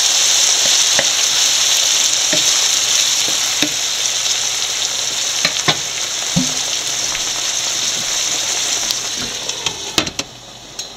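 Potato masala sizzling in a hot nonstick frying pan with a little water added: a steady hiss with a few light clicks. About ten seconds in, a glass lid is set on the pan with a clink, and the sizzle drops to a muffled hiss.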